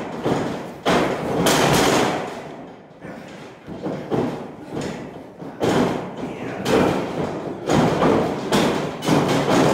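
Bodies hitting and rolling on a wrestling ring's padded canvas: a series of heavy thuds, about eight of them, each echoing in a large metal hall.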